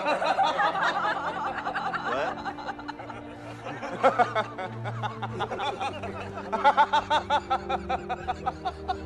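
Added comedic snickering laughter sound effect over background music, in quick choppy bursts near the start and again in a rapid run of pulses near the end.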